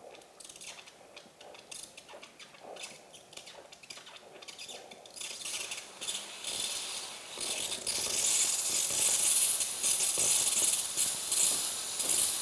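Breville Barista Express steam wand being purged before steaming milk: it sputters and spits at first, then builds from about five seconds in to a steady loud hiss of steam.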